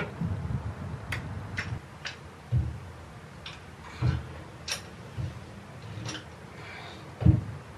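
Caulking gun clicking at irregular intervals as its trigger is squeezed to lay dabs of silicone along a timber batten. A few dull knocks come in between the clicks.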